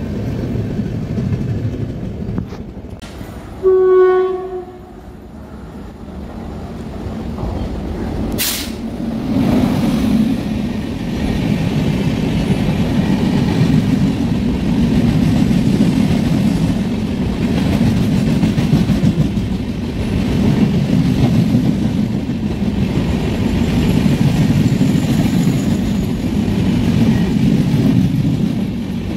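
An electric locomotive's horn sounds once, briefly, about four seconds in. From about nine seconds on, a passenger express's coaches roll past at speed with a steady rumble that swells and fades in a regular rhythm as the wheels pass.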